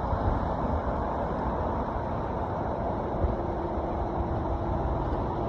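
Steady rumble of road traffic with no distinct passing event.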